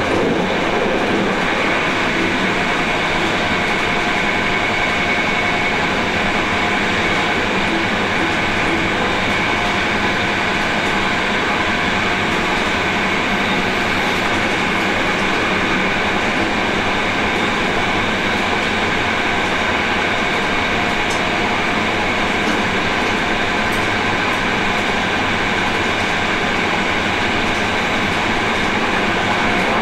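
A train running steadily at speed, heard from the driver's cab: an even rumble of the train and its wheels on the rails, with a faint steady whine on top.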